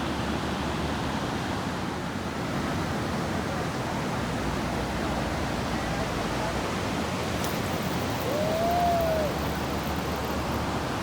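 Steady rush of ocean surf and wind, with a short tone that rises and falls about eight seconds in.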